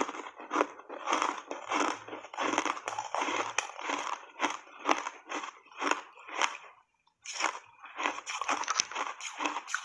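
Close-miked crunching of powder-coated ice being chewed in the mouth, about two crunches a second, with a brief pause about seven seconds in.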